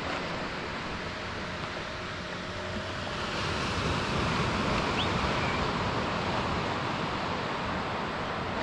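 Surf washing onto a sandy beach, a steady hiss with some wind on the microphone; the wash swells about halfway through and then eases.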